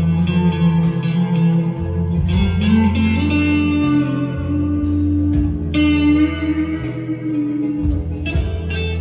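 Squier Deluxe Stratocaster electric guitar played on a clean, twangy tone over a backing track with a steady bass line: sustained single notes, one of them bent upward about two and a half seconds in.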